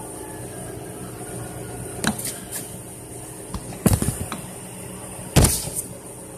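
Warehouse reach lift's electric drive humming steadily, with three sharp knocks about two, four and five and a half seconds in, the last two the loudest.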